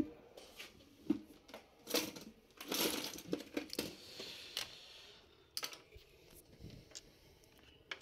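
Handling noise from a laptop case and small tools: a sharp click right at the start, then scattered light clicks and knocks, with a stretch of rustling and scraping around three to four seconds in.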